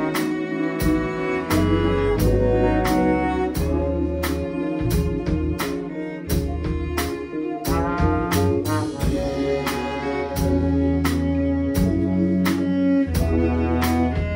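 Live jazz-fusion band playing: trombone and violin over electric guitars, electric bass and a drum kit keeping a steady beat.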